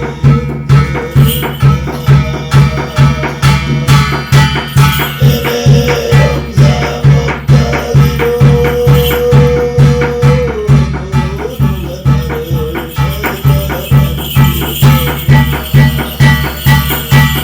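Ritual music for a Korean shamanic gut: a heavy drum beat about twice a second under shaken jingling percussion, with a held melodic note about halfway through.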